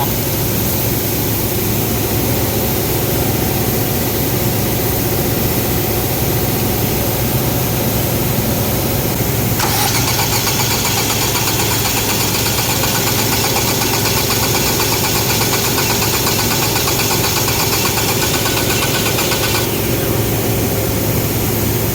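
Ford EcoSport engine running steadily at idle. About ten seconds in, a higher hiss joins it and stops again near the end.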